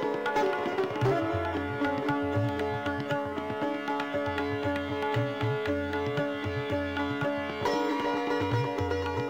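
Instrumental background music: a sustained drone under plucked string melody notes, with a repeating hand-drum beat in the low range.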